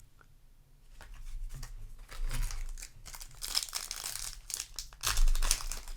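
A Yu-Gi-Oh! booster pack's foil wrapper crinkling as it is handled and torn open, starting about a second in and loudest near the end.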